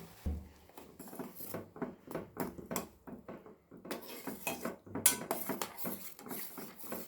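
A metal spoon stirring milk kashaya in a pan, clinking and scraping against the pan in quick, irregular strokes, with a sharper clink about five seconds in.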